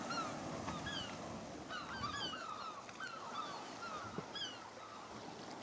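Seabirds calling at a cliff nesting colony: many short, falling, honking calls overlapping one another, growing a little fainter toward the end.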